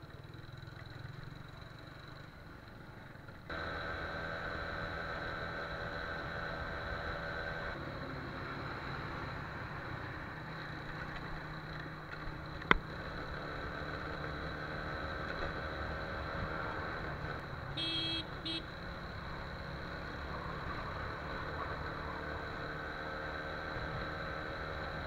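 TVS Apache RTR 180's single-cylinder engine running as the motorcycle rides along town streets, under steady wind and road noise. A sharp click comes about halfway through, and a short beep about three-quarters of the way in.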